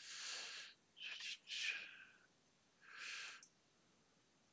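A person breathing faintly near the microphone: four short breaths in the first three seconds or so, then quiet.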